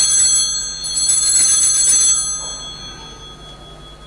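Altar bells shaken in several quick bursts for the elevation of the chalice, giving bright high-pitched ringing. The ringing stops about two seconds in and dies away by three seconds.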